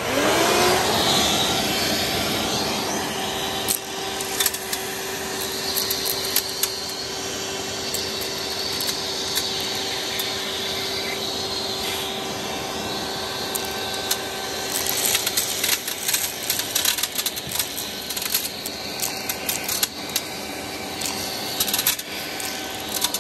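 Vacuum cleaner switched on, its motor spinning up over about a second to a steady whine and rush of air, with many sharp clicks and rattles as pieces of shattered window glass are sucked up through the nozzle, busier in the second half.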